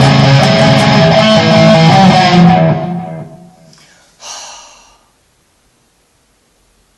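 Guitar plucked and strummed with a piece of paper in place of a pick, its chords ringing out and fading away about three seconds in. A brief soft noise follows, then near silence.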